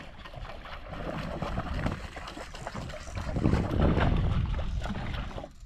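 Sea water sloshing and splashing against the hull of a small fishing boat, with wind on the microphone; the splashing swells louder about three and a half seconds in.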